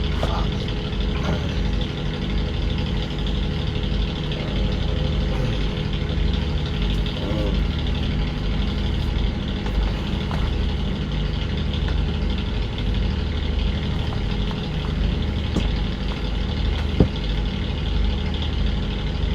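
An engine running at a steady idle, a constant low drone that does not change.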